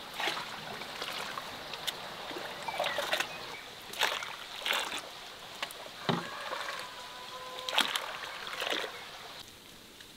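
Cherry plum juice being ladled out of a wide metal pan and poured into an aluminium pot: liquid sloshing, splashing and trickling, with repeated sharp knocks of an enamel ladle against the metal rims. It goes quieter near the end.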